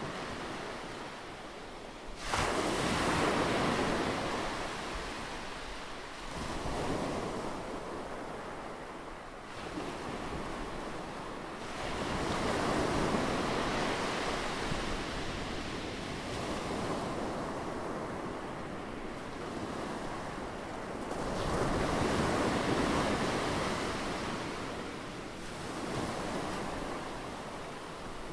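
Sea surf: a rushing wash of waves that swells up and fades back every few seconds.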